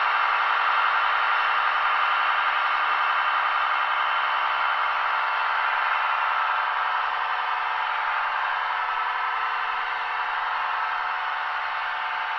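Standing sound of a DB class 111 electric locomotive from a ZIMO MX645R sound decoder, played through the Roco H0 model's small speaker while the model stands still. It is a steady, dense hum and whine with no bass, easing slightly towards the end.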